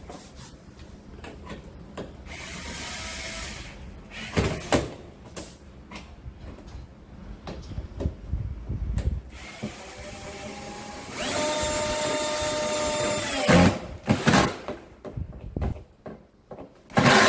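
Power drill driving screws to fix a wooden panel onto a dishwasher door, in two runs: a short burst, then a longer run whose whine rises and holds steady before stopping sharply. Knocks and clicks sound between and after the runs.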